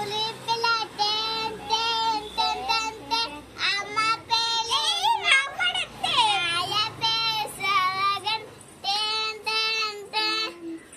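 A young girl singing in a high voice, holding short notes broken into syllables, with a few sliding swoops of pitch in the middle.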